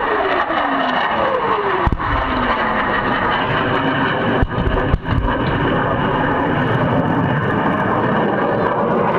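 F/A-18 Hornet jet passing overhead, its engine roar falling in pitch as it goes by and staying loud throughout. Three deep booms of pyrotechnic ground explosions simulating a strafing run: the first about two seconds in, the other two close together a few seconds later.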